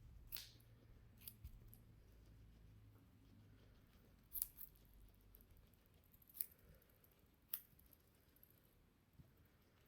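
Guinea pig biting into a carrot: about five crisp crunches, spaced irregularly over several seconds.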